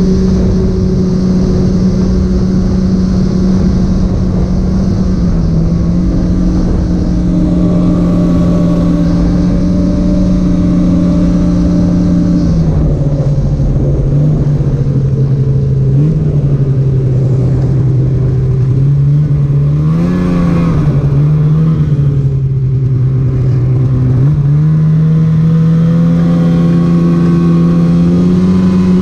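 Polaris Patriot 850 two-stroke snowmobile engine running at trail speed with a steady drone. Its pitch drops about halfway through, blips briefly about two-thirds in, and climbs back up again near the end.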